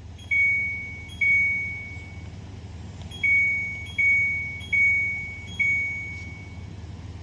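Midea air conditioner beeping six times, each a single clear tone that starts sharply and fades, as it acknowledges remote-control button presses. A steady low hum runs underneath.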